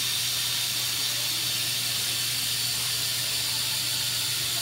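Budget quadcopter drone hovering in place, its four small motors and propellers giving a steady whir and hiss.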